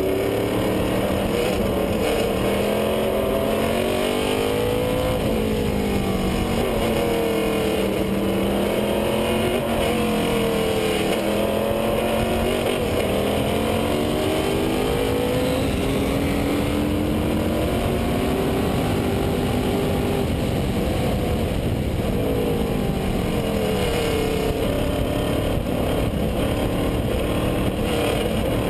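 Onboard sound of a vintage Lola sports-racing car's engine at race pace, its note climbing through the revs and dropping back again and again as the driver accelerates, shifts and brakes through the corners. A steady rush of noise runs underneath.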